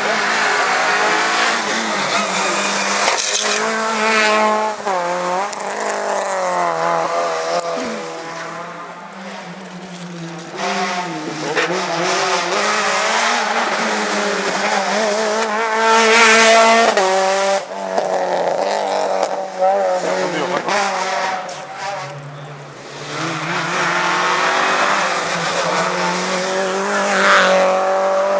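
Rally car engines revving hard, pitch climbing and dropping again and again as they shift gears, with tyres squealing. The loudest moments come about halfway through and again near the end.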